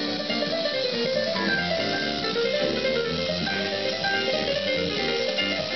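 Music with guitar-like plucked strings playing through the speaker of a 1950s Delmonico Novum Model 1047 tube radio.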